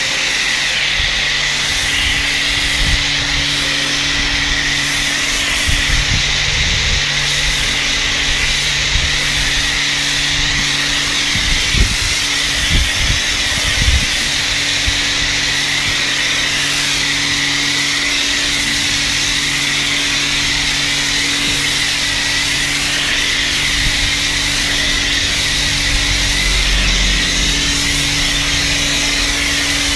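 Kärcher K4 pressure washer running steadily, its motor and pump humming under the hiss of snow foam spraying from a foam lance. A few brief low knocks come around the middle.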